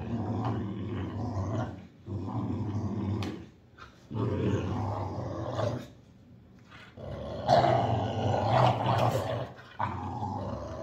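Boxer dogs play-growling while tugging on a rope toy, in long growls broken by short pauses. The loudest growling begins about seven and a half seconds in.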